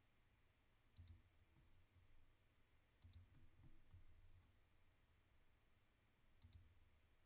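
Near silence with a few faint computer mouse clicks, in pairs like double-clicks, about a second in, about three seconds in and near the end.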